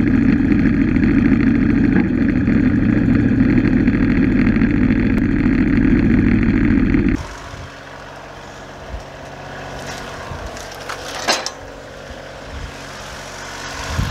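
An engine running loudly at a steady high speed, then, after an abrupt change about seven seconds in, an engine idling much more quietly with a few knocks and clunks.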